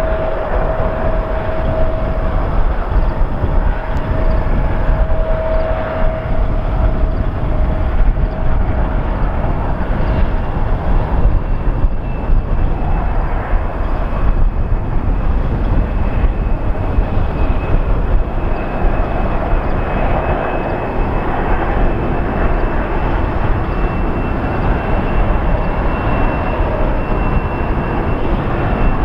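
Jet airliner engines running: a steady rush of engine noise with a faint high whine coming in during the second half.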